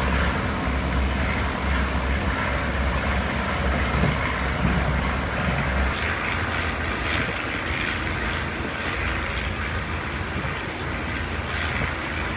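Hitachi RHN diesel railcar under way, its engine and wheel-on-rail noise heard from on board. A heavy low rumble eases off about six seconds in.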